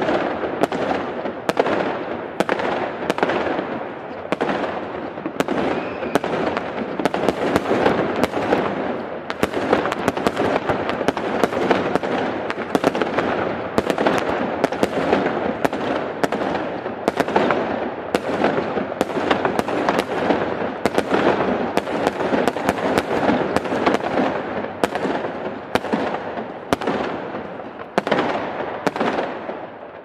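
Fireworks going off without a break: sharp bangs and cracks, one to three a second, over a continuous crackle, dying away at the very end.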